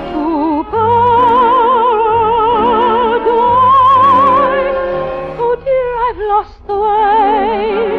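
Operatic singing with orchestral accompaniment: a trained voice holds long notes with a wide vibrato, breaking briefly between phrases a little past halfway.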